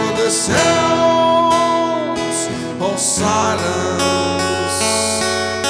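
Sigma acoustic guitar strumming chords, with a voice holding a long sung note over it through the first half, then the guitar ringing on alone.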